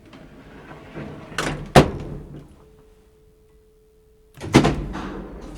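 Elevator door sliding and banging shut, with two sharp knocks about a second and a half in, the second one the loudest. A faint steady hum follows, then a loud clunk about four and a half seconds in, followed by a steady low rumble.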